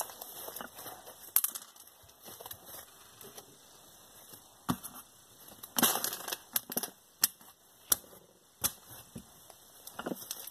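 Slime being kneaded by hand with small plastic bead stones mixed in: irregular sharp clicks and crackles, with a denser burst of crackling about six seconds in.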